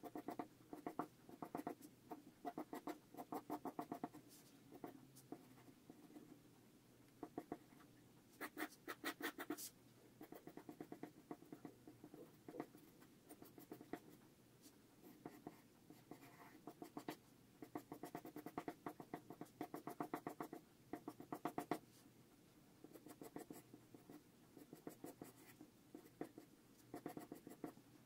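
Mechanical pencil scratching on drawing paper in quick, rapid sketching strokes. The strokes come in bursts of a second or two with short pauses between them.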